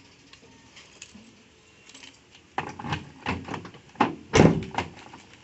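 Metal clicks and clacks from the rear tailgate handle and lock of a Toyota Hiace Grandia van as it is worked with a wire to open it without the key. A quick run of sharp clicks starts about halfway through, the loudest clack near the end.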